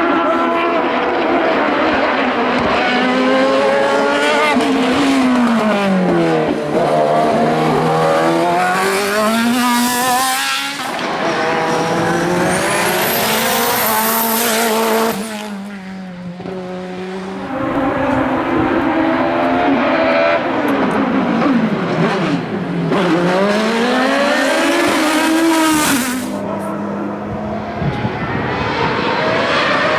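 Hillclimb race car engines at full throttle, pitch climbing with each gear and dropping sharply on downshifts into corners, over and over as different cars pass. Tyres squeal in places.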